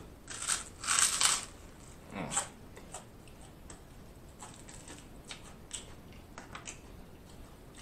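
Crunching bites into toasted garlic bread, several loud crunches in the first second and a half and one more about two seconds in, then quieter chewing with scattered small mouth clicks.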